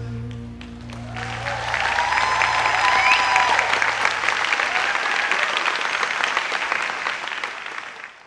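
Audience applauding with a few cheers, rising about a second in as the last held chord of the music fades out, and cut off suddenly near the end.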